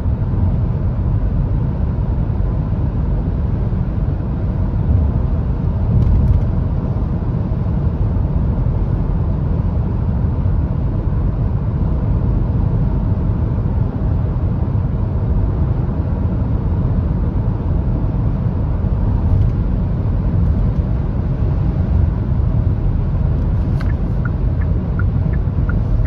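Steady low road rumble inside the cabin of a Hyundai Tucson 1.6 turbo hybrid cruising at about 130 km/h, running on its petrol engine rather than the battery. There is a brief louder bump about six seconds in.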